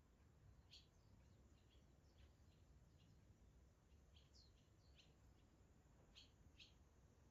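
Faint, scattered short high chirps of barn swallows over a low steady background hum.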